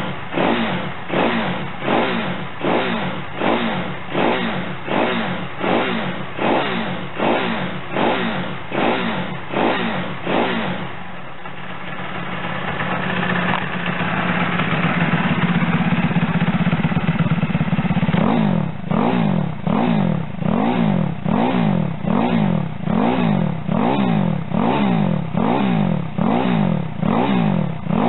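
Single-cylinder engine of a Chinese Monkey-replica mini bike, breathing through an aftermarket Power Up exhaust with a CBR400RR silencer. The engine speed rises and falls in quick regular blips about twice a second, is held up for about seven seconds starting near the middle, then goes back to the same quick blips.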